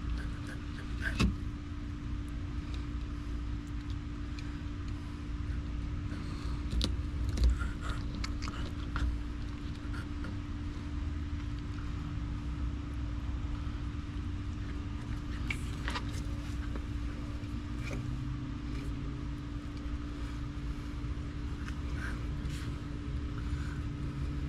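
Scattered clicks, knocks and rubbing as a knife and hands work a big saltwater catfish on a wet metal table, over a steady low hum with a constant tone. The sharpest knocks come about a second in and again around seven seconds in.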